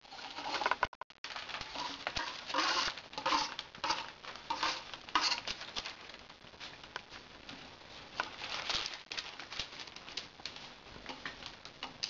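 Newspaper crinkling and rustling in irregular bursts as a Pembroke Welsh Corgi puppy steps and scrabbles over the sheets.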